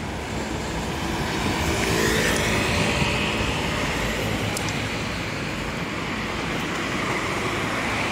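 Motor traffic on a city street: a vehicle passing, its rushing engine and tyre noise swelling about two seconds in and then fading slowly.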